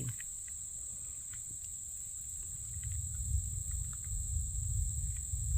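Steady high-pitched insect chorus of crickets or similar night-singing insects, with a low rumble underneath that grows louder about halfway through.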